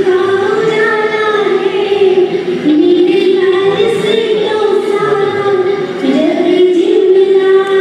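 Singing with musical accompaniment: a melody of long held notes that slide up and down between pitches.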